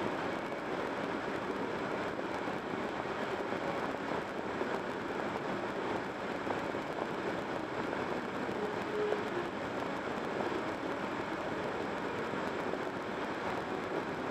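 Steady tyre and wind noise of a car driving at highway speed.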